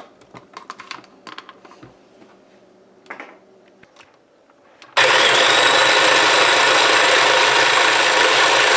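Electric mini chopper running steadily, chopping seasonings with a little water; the motor starts abruptly about halfway in, after a few light clicks and taps.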